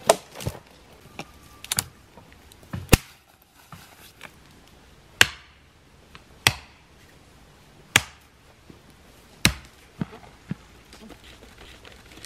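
Dry dead branches being snapped by hand, a series of sharp cracks roughly one every one to two seconds.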